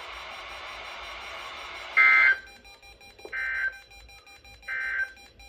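NOAA Weather Radio audio: about two seconds of steady hiss, then three short, buzzy data bursts a little over a second apart, the first one loudest. These are the EAS SAME end-of-message tones that close the test tornado warning.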